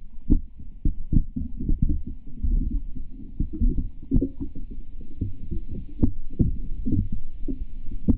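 Muffled low rumble of water, with frequent irregular thumps and knocks, heard through an action camera inside a sinking LEGO boat model.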